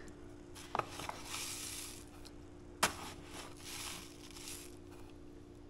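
A metal spoon scooping raw cane sugar from a paper bag and stirring it into a stainless saucepan: soft rustling from the bag and sugar, with two sharp clinks of spoon on pan, the louder one near the middle. A faint steady hum runs underneath.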